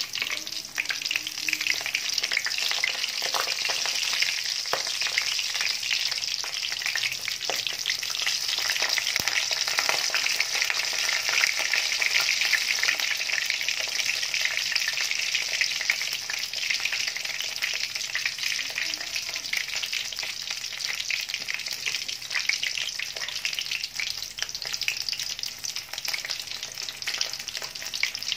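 Frozen spring rolls deep-frying in hot oil in a wok: a steady, dense sizzle and crackle of the oil that swells a little louder about halfway through.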